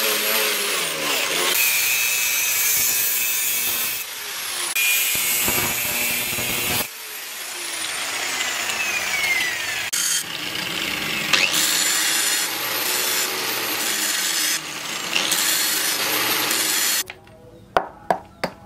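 Electric angle grinder with a sanding disc grinding down a piece of reddish hardwood for a machete handle. The whine sags and recovers in pitch as the work is pressed into the disc. Near the end the grinding stops and a blade knocks into the wood a few times as the handle is carved by hand.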